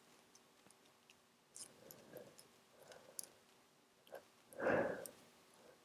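A stifled sneeze from a person with a head cold: one short, muffled sneeze held back in the nose and throat, about four and a half seconds in. Before it there are only a few faint clicks.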